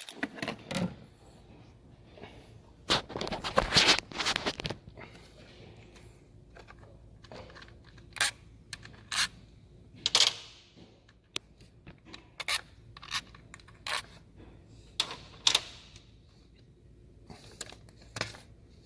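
Scattered metallic clinks, taps and scrapes of hand tools and small metal parts being handled during work on a car engine's valve cover area, busiest from about three to four and a half seconds in.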